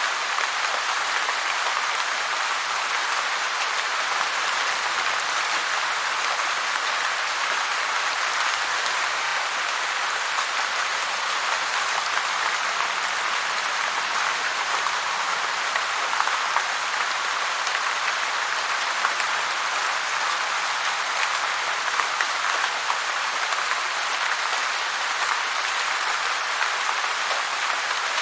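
Heavy rain falling steadily: a dense, even hiss of countless drops with no pauses and no sign of thunder.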